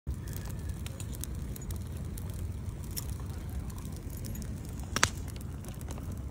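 Bonfire of dry stalks burning: scattered crackles and pops over a steady low rush, with one sharp crack about five seconds in.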